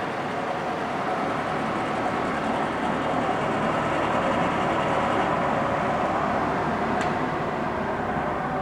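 1997 Mercury 40 hp three-cylinder two-stroke outboard running steadily at idle in a test tank, just after being restarted.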